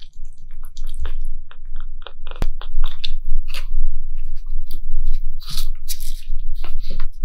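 Close-miked wet clicking and smacking of a baby sugar glider licking at a feeding syringe, with a sharp knock about two and a half seconds in.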